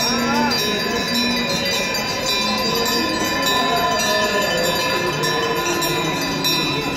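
Temple bells ringing continuously for the Ganga aarti, a steady metallic jangle of several pitches at once.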